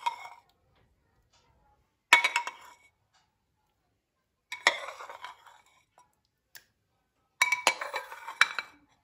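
Dishes and cutlery clinking and clattering in three short bursts separated by silent gaps, the last burst the longest, with brief ringing after the strikes.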